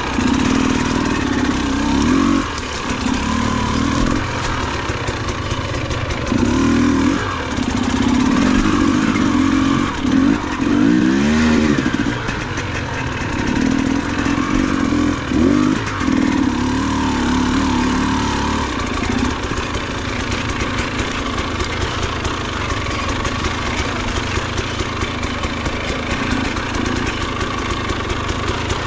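Off-road motorcycle engine revved in repeated bursts, its pitch rising and falling, then settling to a steady idle about two-thirds of the way through.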